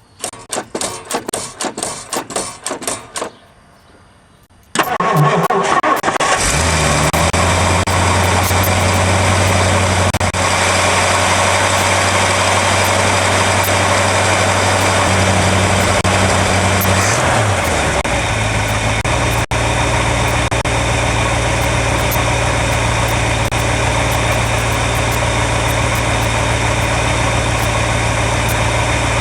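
1958 Ford Thunderbird's 352 V8 cold-starting: about three seconds of rapid starter cranking, a short lull, then the engine fires and runs at a steady idle. Its low idle note shifts about two-thirds of the way through.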